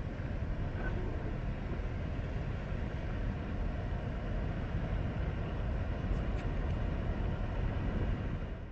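Steady low rumble of background ambience with a faint hiss above it and no distinct events.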